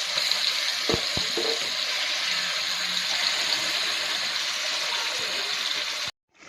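Water running steadily from a tap into a sink, with a couple of small knocks about a second in. It cuts off abruptly near the end.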